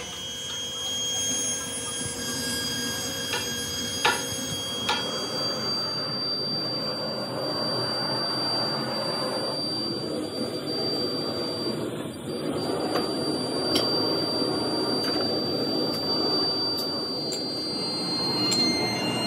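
Steady rushing noise of fired foundry pit furnaces running, with a thin high whine over it and a few sharp metal clinks, the loudest about four seconds in.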